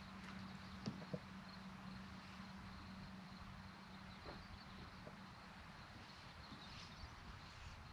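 Quiet outdoor lake ambience: a faint steady low hum that fades out about five seconds in, faint high chirping, and a few soft ticks.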